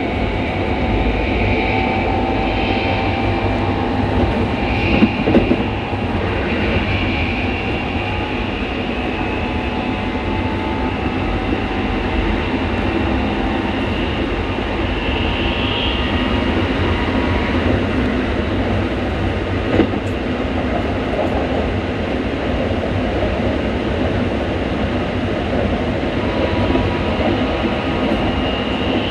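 Keikyu electric train set 1485 running, a steady low rumble under a drifting electric motor whine, with an occasional knock from the wheels on the rails. The motor sound is louder and deeper than usual: the uploader suspects the set now carries Mitsubishi-type motors.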